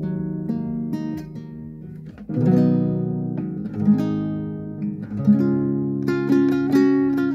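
Acoustic guitar played by hand: picked notes ringing over held chords, with fuller chords struck about two seconds in and again past five seconds, followed by quick repeated picking.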